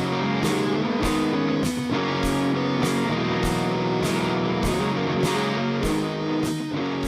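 Background music led by guitar, with a steady beat about twice a second.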